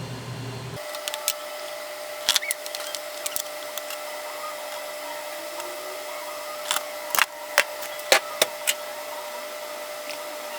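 A steady mechanical hum with a scatter of sharp clicks and taps, the taps bunching together in the second half.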